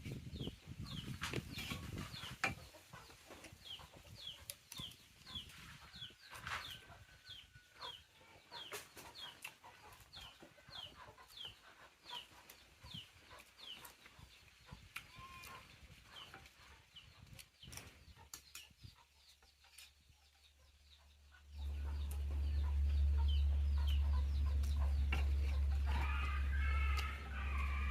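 A small bird peeping over and over, short falling high calls about two a second, with scattered clicks. About three-quarters through, a loud steady low hum sets in and covers the rest.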